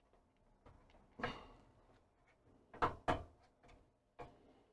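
A few short knocks and clicks, two in quick succession near the middle, as a monitor circuit board and its plastic lugs and connectors are pressed and seated in the metal chassis.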